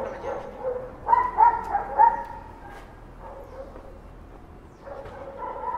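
A dog barking in quick runs of short barks, the loudest run about a second in and another near the end.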